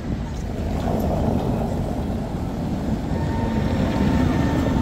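Tatra T3 tram approaching on cobbled street track and rolling past close by, a low rumble of wheels and running gear that grows gradually louder. A faint steady whine comes in about three seconds in.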